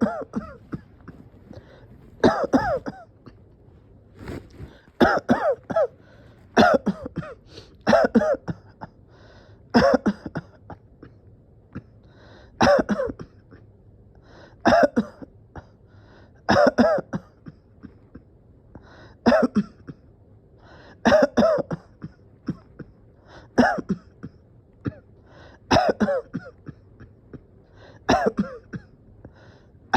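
A person coughing over and over, a single cough or a quick pair roughly every two seconds: a persistent coughing fit.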